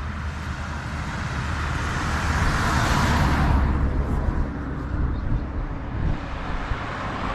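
Road traffic passing on a nearby road, one vehicle swelling up and fading away about three seconds in, over a steady low rumble.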